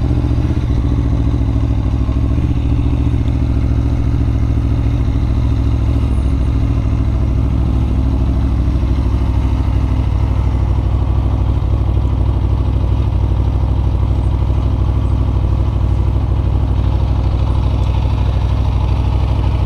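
2017 Aprilia Tuono Factory's V4 engine idling steadily.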